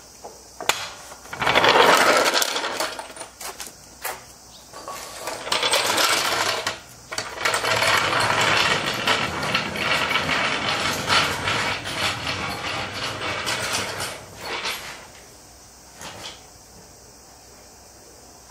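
Steel floor jack rolled across a concrete floor, its wheels and frame rattling with metallic clanks. There is a short burst about a second in, then a longer stretch from about five seconds to about fifteen seconds.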